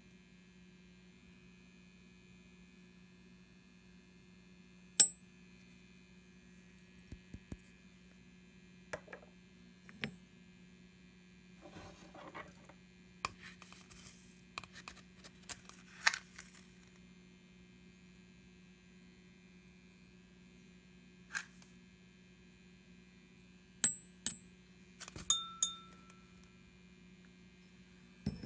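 A steady low hum with scattered sharp clicks and light clinks, a couple of them ringing briefly.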